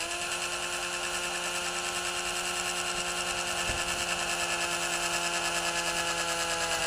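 18 V cordless drill running steadily at speed, drilling a 3 mm hole through the plastic case of a radio transmitter.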